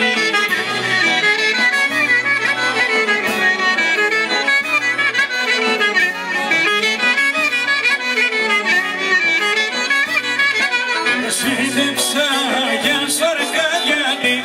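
Live Greek folk dance music: a clarinet playing an ornamented melody over accordion, with a bass note pulsing on the beat. Sharp percussive ticks join in near the end.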